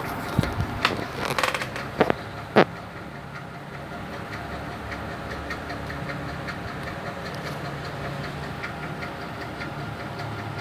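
A steady low machine hum, with several sharp knocks in the first three seconds, the loudest about two and a half seconds in.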